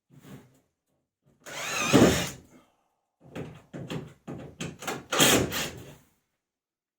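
Cordless drill-driver screwing plasterboard screws through the board into the hardwood beams. One longer run about one and a half seconds in, then a string of short trigger bursts from about three to six seconds.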